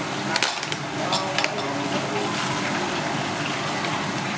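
Kitchen scissors snipping through the shell of a cooked giant isopod, a few short crisp snips in the first second and a half, over a steady rushing noise and faint voices.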